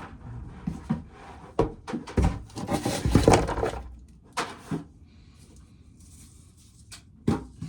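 Ears of corn being shelled: irregular knocks, clatters and rustles of cobs and kernels for about four seconds, then only a few scattered clicks over a quieter hiss.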